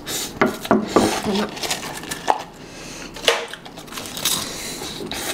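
Close-up eating sounds: Samyang Buldak instant noodles slurped from chopsticks, with sharp clicks of cutlery against a bowl.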